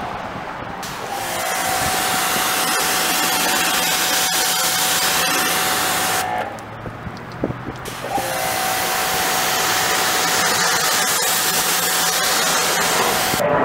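Electric pressure washer spraying water onto a car body: a loud hiss of spray over a steady whine from the machine, in two long stretches with a pause of about two seconds between them. The owner says the pressure washer is kind of broken, which is why it keeps making that noise.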